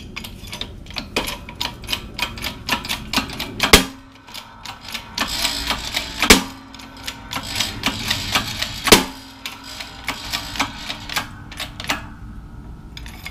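A new front wheel bearing for a 2006 Honda Civic being pressed into the steering knuckle by its outer race. The sound is rapid metallic clicking and ticking, with three loud clunks about two and a half seconds apart.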